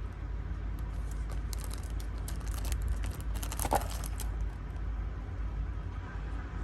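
Light handling noises, scattered small clicks and rustles as a knife sheath and its packaging are handled, over a steady low hum.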